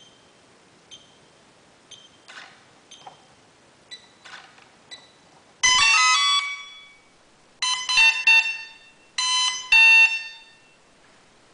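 Twin brushless motors of an RC model boat sounding through their electronic speed controllers: faint short beeps about once a second, then, from about halfway, three loud bursts of high stepped electronic tones, each a second or so long.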